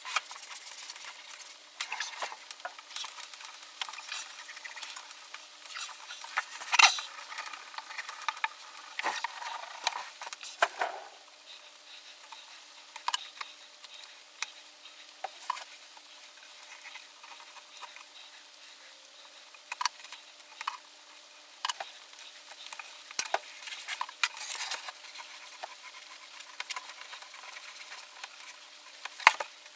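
Hands laying a sheet of leatherette onto the glued side of a tool chest and smoothing it down: irregular rustling and crinkling of the sheet with scattered small ticks and taps, a couple of them louder.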